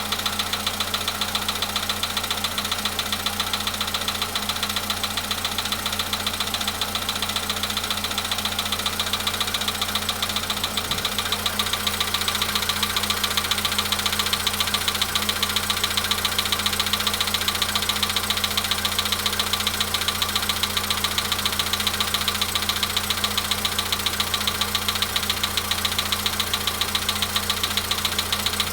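Volkswagen Polo Sedan petrol engine idling just after a cold start, with a fast, even knock running through the idle. This is the engine knock that has appeared at about 93,000 km.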